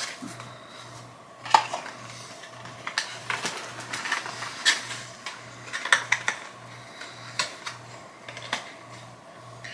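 Light clicks, taps and rustles of a small product box and its plastic contents being handled, in irregular bursts.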